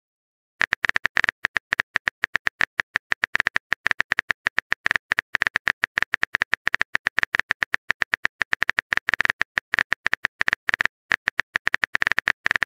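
Keyboard-typing sound effect: a long run of quick, sharp key clicks, several a second, with a brief pause near the end.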